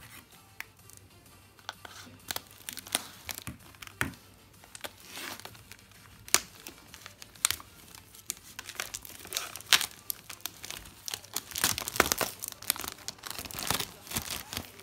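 Clear plastic shrink wrap crinkling and tearing as it is peeled off packaged CDs by hand, a run of sharp crackles that gets busier in the second half.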